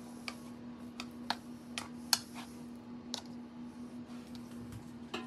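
Metal knife stirring sticky bread dough in a mixing bowl, giving scattered light clicks as it knocks against the bowl's side, about nine in all at irregular intervals. A steady low hum runs underneath.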